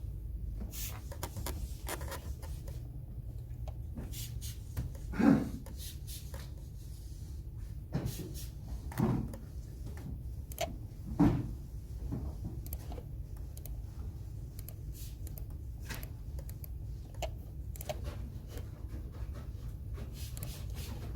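Computer keyboard typing: irregular key clicks over a steady low hum, with three louder knocks about five, nine and eleven seconds in.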